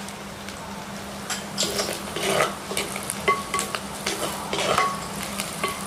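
Wooden spoon stirring and scraping onions, green chillies, curry leaves, mustard and fennel seeds frying in oil in a clay pot, over a steady sizzle. The scraping strokes come one after another from about a second and a half in.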